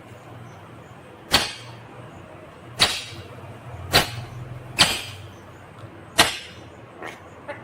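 Ringneck parakeet giving short, sharp, harsh screeches, five loud ones spaced roughly a second apart, then two fainter ones near the end, over a low steady hum.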